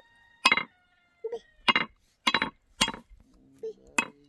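A series of sharp metal clinks, about eight in four seconds, the first ringing on briefly. A few short high cries come in between.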